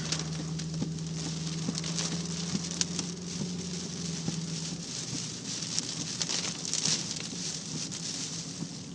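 Heavy hurricane rain pelting the vehicle, a dense patter of drops, with a steady low hum underneath that stops about five seconds in.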